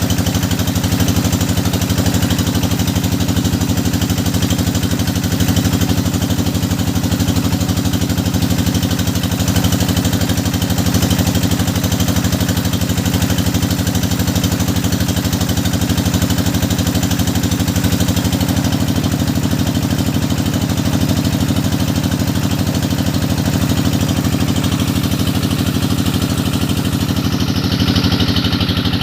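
Engine of a hydraulic well-drilling rig running steadily at a constant speed, a loud even drone with no pauses.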